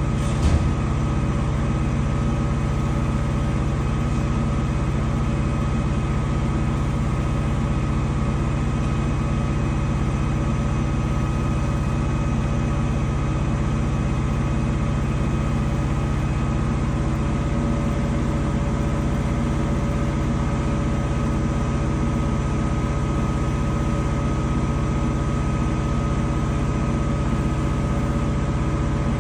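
Danube 20 kg washer-extractor running steadily with a constant motor hum and whir, no reversing rhythm, typical of the spin near the end of its cycle. A brief knock about half a second in.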